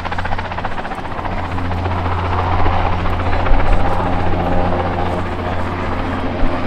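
Westland Wessex helicopter flying past, its rotor beating rapidly and steadily under a steady engine whine.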